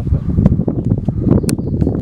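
Wind buffeting the camera microphone with a heavy low rumble, broken by a few sharp clicks, the loudest about a second and a half in.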